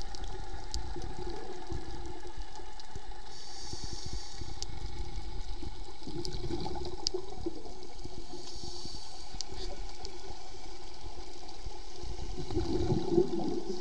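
Muffled underwater rushing picked up through a diving camera's housing, with two short hisses about five seconds apart, typical of a scuba diver's regulator breaths.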